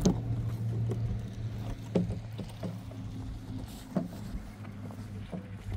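A shovel knocking and scraping in mud mortar a few times, about every two seconds, over a steady low engine hum.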